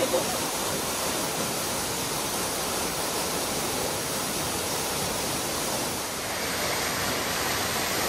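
Waterfall plunging down a rock cliff into a pool: a steady rush of falling water.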